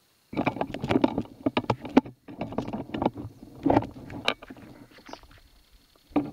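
Handling noise from a hand-held camera: loud rubbing and rustling with many sharp knocks, broken off briefly about two seconds in, then dying down toward the end.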